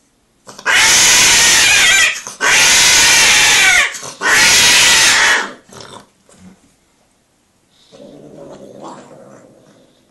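Female domestic cat's copulatory scream as mating ends: three long, loud yowls, each over a second, followed near the end by a quieter, lower call.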